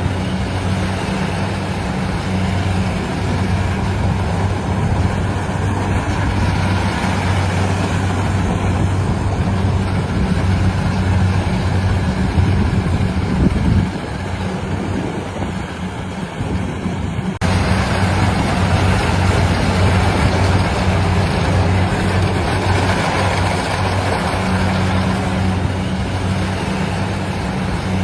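Engine of a rice-harvesting machine running steadily with a low hum. It eases slightly for a few seconds past the middle, then the sound changes abruptly about 17 seconds in.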